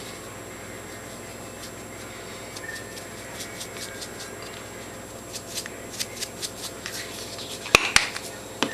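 Black pepper being shaken from a container into a bowl of breadcrumbs: a run of light, irregular clicks and taps starting about three seconds in, then two sharper knocks near the end.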